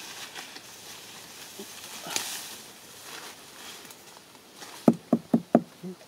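A knife blade hacking at a tree trunk: a quick run of four or five sharp knocks in under a second near the end. A brief rustle comes about two seconds in.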